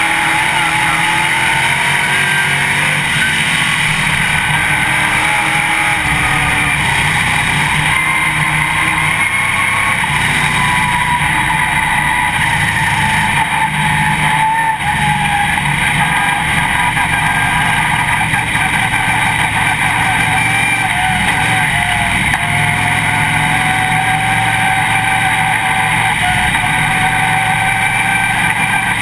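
Dirt late model race car's V8 engine running hard, heard from inside the cockpit, its note rising and falling as the car laps a dirt oval.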